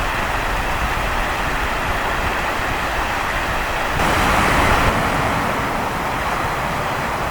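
Sea surf with wind: a steady wash of waves and wind rumble on the microphone, with one louder wave surging about four seconds in.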